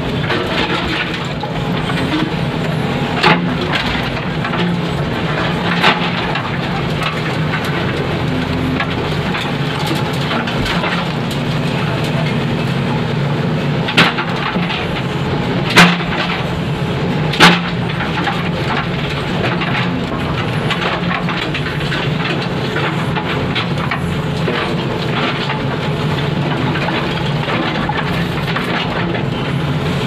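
JCB backhoe loader's diesel engine running steadily under hydraulic load, heard from the cab, as the backhoe bucket digs through brick demolition rubble. Five sharp knocks of the bucket striking the bricks stand out, the loudest two close together in the second half.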